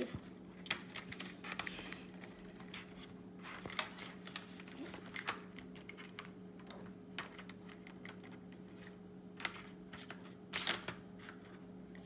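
Plastic pieces of a magnetic speed cube clicking and tapping as they are handled, fitted into the partly built cube and set down on the tabletop: scattered small clicks, with a short cluster of louder ones near the end.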